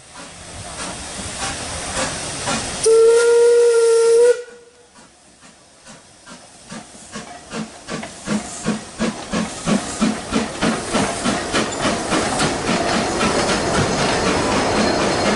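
Three-foot-gauge Beyer Peacock steam tank locomotive starting away with its train. A hiss of steam, then one loud whistle of about a second and a half, then exhaust beats that start slow and quicken steadily as it pulls away.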